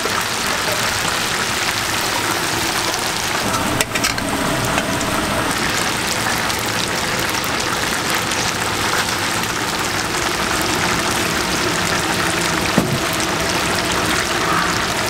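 Battered chicken pieces deep-frying in a large kettle of hot oil, a steady loud sizzle, while a wire mesh skimmer stirs and lifts them. Two short knocks stand out, about four seconds in and near the end.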